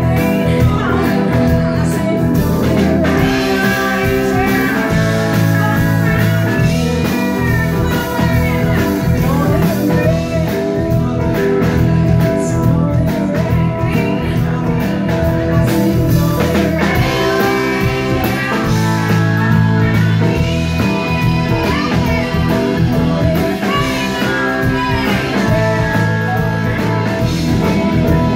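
Live blues-rock band playing loudly: electric guitar, keyboards and drums, with a woman singing.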